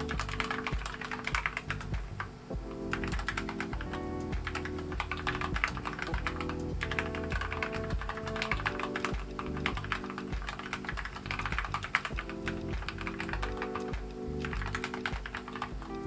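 Keychron K8 mechanical keyboard being typed on steadily, a continuous stream of key clacks with brief lulls, over background music.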